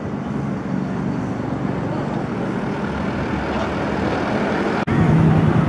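Street traffic with engines running, a steady low engine hum. There is a brief dropout near the end, after which the hum is louder.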